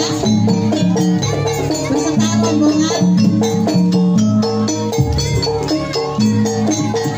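Javanese gamelan music for a jaranan barongan dance: tuned metal percussion playing a quick repeating melody over drumming.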